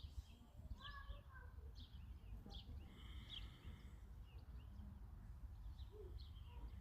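Small birds chirping faintly, scattered short calls over a low steady rumble.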